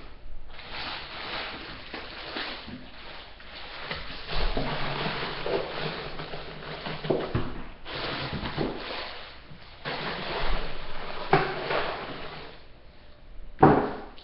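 Rustling of food packaging, with a few sharp knocks, as frozen food packages are moved around in a freezer.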